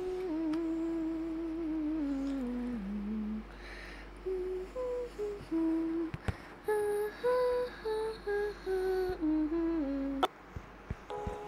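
A person humming a slow tune: one long note that slides slowly downward, then a string of short separate notes, with a couple of sharp clicks.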